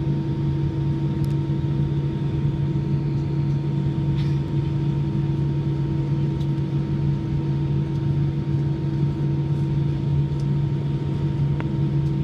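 Cabin noise of an Airbus A319 taxiing, heard from a seat over the wing: a steady engine and cabin hum with several constant tones, and a few faint clicks.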